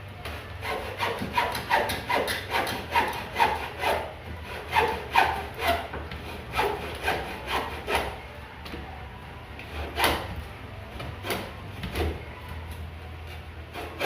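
A broken wooden cabinet being taken apart by hand: quick, even rasping strokes on wood, about two to three a second, for the first several seconds. Then a few slower, separate strokes and a sharp knock about ten seconds in.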